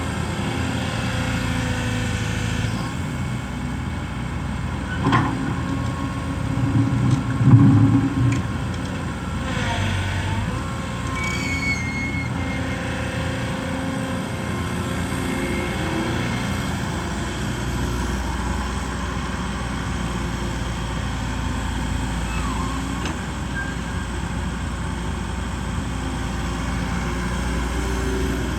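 Heavy diesel machinery running steadily, most likely the Kobelco SK120 Mark 3 excavator at work. A sharp knock comes about five seconds in, and a louder low thump follows around seven to eight seconds in.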